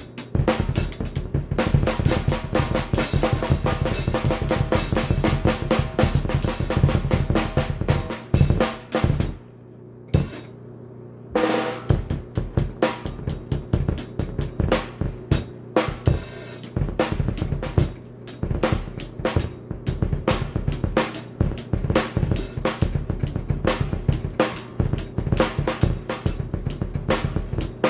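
Drum kit played fast, with rapid double bass drum strokes under snare and cymbals. The playing breaks off for about two seconds near the middle, then starts again.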